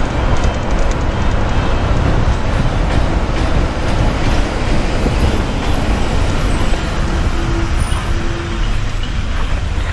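A moving bus, heard from its side window: the engine and the tyres on the road make a loud, steady rumble.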